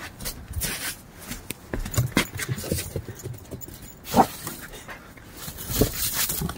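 A puppy giving two short barks, about four seconds in and again near six seconds, amid knocks and scrabbling of paws on a snowy wooden deck.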